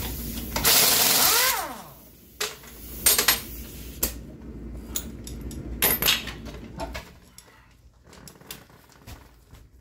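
Pneumatic impact wrench runs in one loud burst of about a second on a truck wheel's lug nut, its pitch falling as it winds down. Scattered metallic clinks and knocks follow as the loose lug nut and tools are handled.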